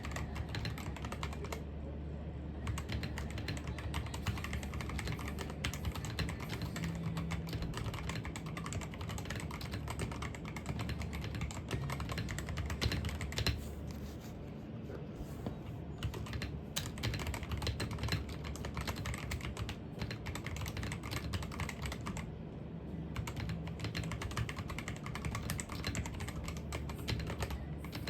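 Rapid, continuous typing on a computer keyboard, a dense run of keystroke clicks broken by a few short pauses, over a steady low hum.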